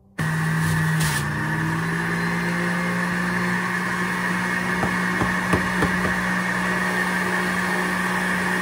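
Electric centrifugal juicer's motor running at speed while juicing oranges: a loud, steady hum with a higher whine that cuts in abruptly at the start. A couple of small knocks come about five and a half seconds in.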